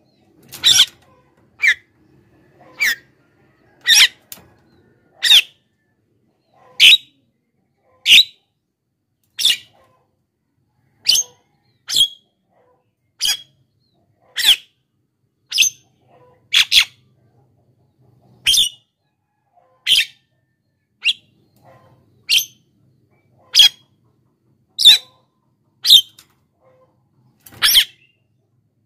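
Javan myna (jalak kebo) calling in full voice: a short call note repeated over and over, roughly one every second and a half, now and then two in quick succession.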